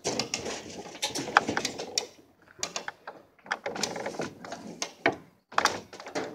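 Ratchet strap being cranked tight, its ratchet clicking and rattling in several bursts.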